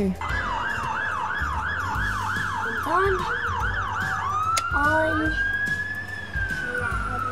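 Fire engine siren sounding a fast yelp, about three up-and-down sweeps a second, then about four seconds in switching to a slow wail that rises and then falls away.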